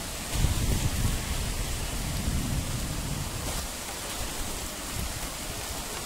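Steady hiss of rain during a thunderstorm, with a low rumble of thunder rolling through the first half that fades out about three and a half seconds in.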